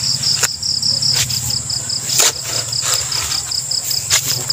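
Crickets chirping in a rapid, even pulse over a steady high insect trill, with several sharp knocks from a digging bar striking the soil of the hole.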